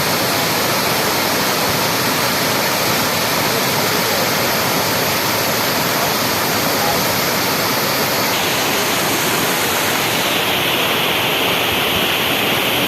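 Waterfall: a steady, loud rush of falling water that shifts a little in tone about eight to ten seconds in.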